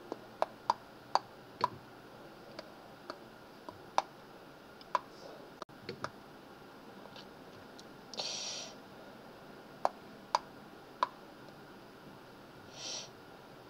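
Computer mouse clicking, a run of quick single clicks over the first six seconds, a pause, then three more clicks. Two short, soft hisses come in between, one a little past the middle and one near the end.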